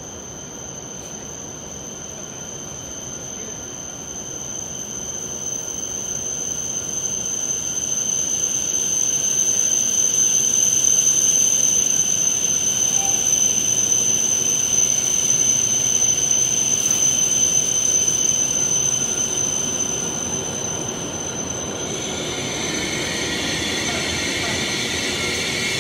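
E7 series Shinkansen train pulling into the platform: its rumble grows steadily louder as it approaches and runs past. Near the end a high squeal of the braking wheels comes in as it slows. A steady high-pitched whine runs underneath throughout.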